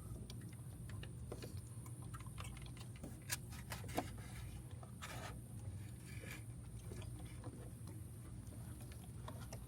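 Faint scattered clicks and scrapes of hands fumbling a wiring connector onto an engine's oil pressure switch, over a steady low background hum.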